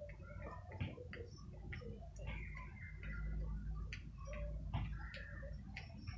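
A bird pecking up small seeds, its beak making irregular sharp clicks a few times a second.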